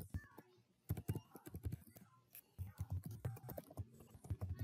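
Typing on a computer keyboard: quick, irregular keystroke clicks with brief pauses between runs.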